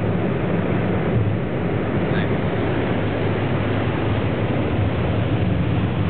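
Steady in-cabin driving noise of a car on a snow-covered highway: a constant rush of tyre and wind noise over a low engine hum.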